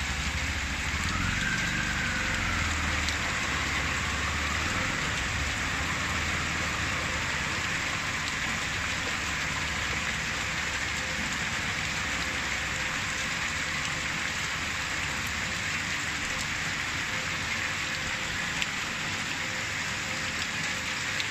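Heavy rain pouring steadily onto a flooded street, a dense hiss of drops on standing water. An auto-rickshaw's engine runs low under it for the first few seconds, then fades out.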